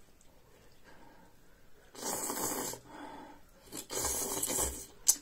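Two noisy rushes of air through pursed lips, each under a second long, as a man eats a forkful of hot food. A sharp click near the end.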